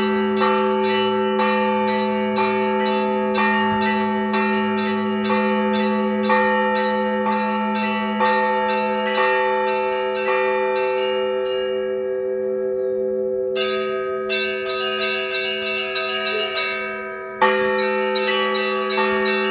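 Russian Orthodox church bells rung to call to a service. Small bells are struck in quick patterns over the held ringing of larger bells, with a heavier stroke about once a second. The small bells die away and stop for a second or two a little past the middle, then start again, and a loud stroke comes near the end.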